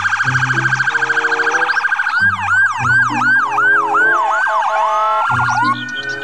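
Emergency vehicle sirens from ambulance cars running with lights on. First a rapid warble for about two seconds, then a rising-and-falling yelp about three times a second, then a long rising wail near the end, with background music underneath.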